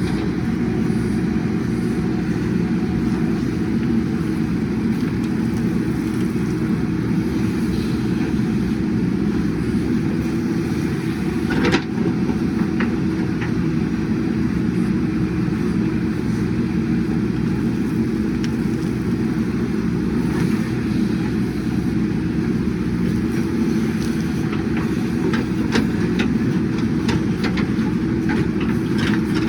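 JCB 3DX backhoe loader's diesel engine running steadily, with one sharp knock about twelve seconds in and a run of short clanks and ticks over the last few seconds.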